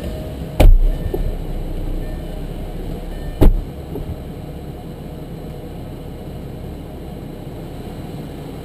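Two heavy thumps as the driver drops into the Lamborghini Gallardo and its door is shut, the first about half a second in and the second about three seconds later, over a steady low rumble that eases after the second thump.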